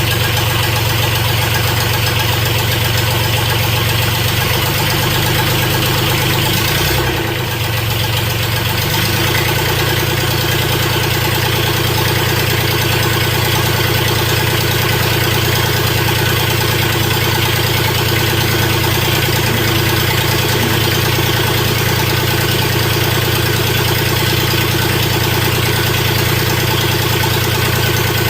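Freshly rebuilt diesel engine of a Mustang skid steer running steadily at idle. About seven seconds in, its speed briefly sags and wavers, then it settles back into an even idle.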